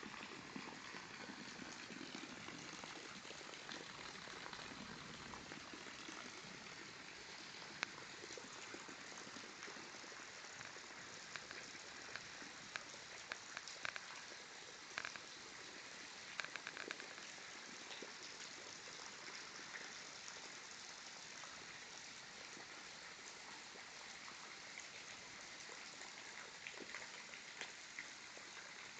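Steady rain falling, with scattered sharper drops, mostly in the middle.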